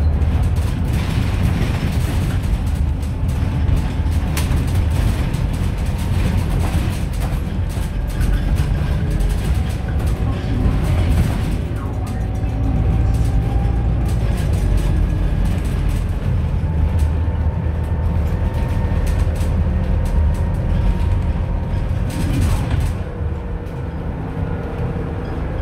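Scania Citywide LF city bus running on compressed natural gas, heard on board while under way: a steady low engine and road rumble with a faint whine that rises a little partway through, and scattered light rattles.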